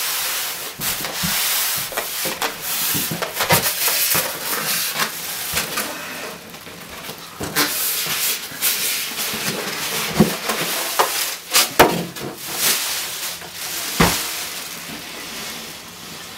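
Plastic packing bag crinkling and rustling as a tower server is worked out of it and its foam packing, with scattered sharp knocks and thumps of handling, a few louder ones in the second half.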